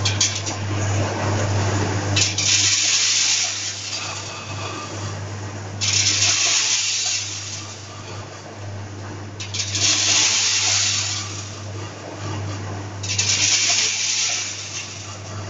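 Vertical form-fill-seal packing machine bagging peanuts: a steady hum with a loud rush of peanuts pouring down the forming tube into a fresh pouch about every three and a half seconds, four times.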